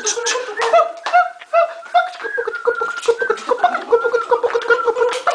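A person making comic mouth noises: short pitched hoots and squeaks that jump between a few notes, broken by quick clicks.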